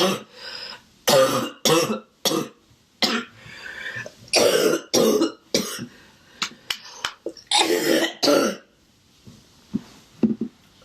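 A woman's harsh, barking cough: about ten chesty coughs in clusters, dying away about nine seconds in. The cough comes with head congestion, which she puts down to windblown dust.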